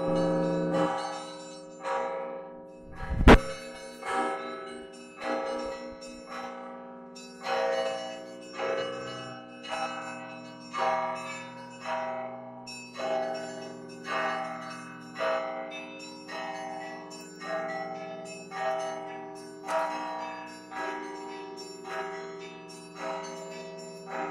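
Church bells of a Russian Orthodox monastery belfry ringing a peal: several bells of different pitch struck in a steady rhythm about once a second, with lighter strikes in between over the hum of the bigger bells. A single sharp knock, the loudest thing in it, comes about three seconds in.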